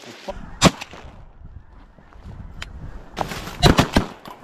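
Shotgun blasts at ducks: a single shot well under a second in, then a fast volley of several shots near the end, coming close enough together to nearly overlap.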